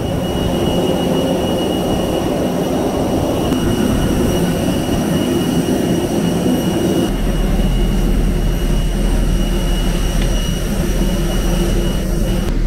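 Steady jet aircraft noise on an airport apron: a continuous whine with a constant high-pitched tone over a broad rumble. About seven seconds in, a deeper low rumble joins.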